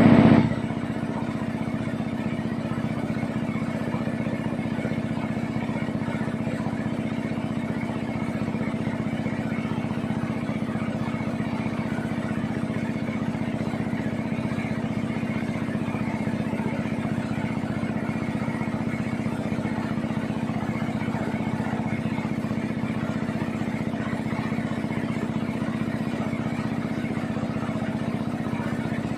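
A wooden boat's engine running steadily at cruising speed, with water rushing along the hull. The engine's hum holds an even pitch throughout.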